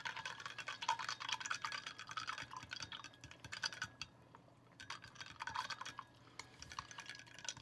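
A spoon stirring powdered drink mix in a glass of water: a quick run of small scrapes and ticks against the glass, pausing briefly twice.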